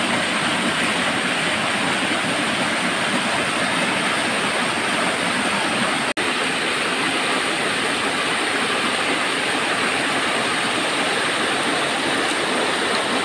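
Small mountain waterfall cascading over rocks into a pool: a steady rush of water, with a split-second dropout about six seconds in.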